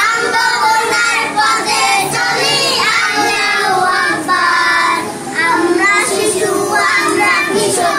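A group of young children singing a song together in unison, with short pauses between the phrases.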